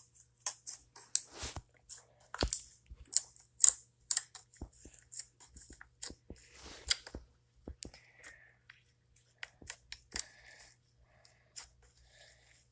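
Irregular crunching and crackling made of many sharp clicks, with two heavier knocks about one and a half and two and a half seconds in.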